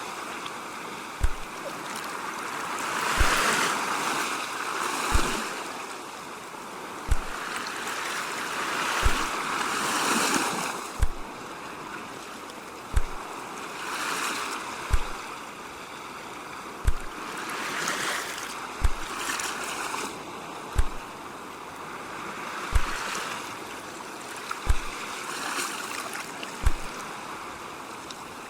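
Sea waves washing on the shore, swelling and easing every few seconds. Under them, a short low thump repeats evenly about every two seconds.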